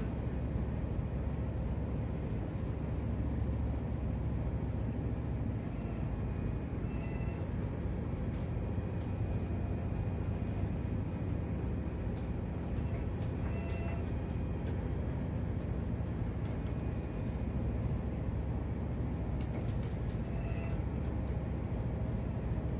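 Ship's engine running with a steady low drone, heard from inside the wheelhouse, with a few brief faint squeaks.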